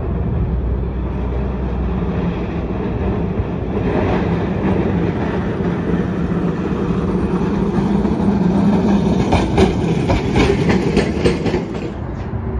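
Heritage electric streetcar approaching and passing on its street track, growing louder as it nears. A quick run of wheel clacks on the rails comes near the end.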